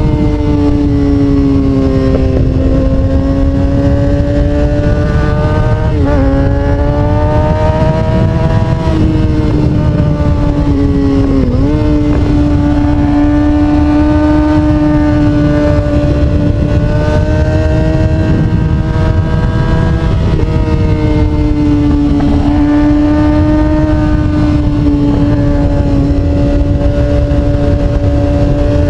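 Kawasaki Ninja sportbike engine heard from on board while riding, running at steady revs with its pitch drifting slowly up and down. It dips sharply and recovers about 6 and 11 seconds in, over a constant low wind rumble.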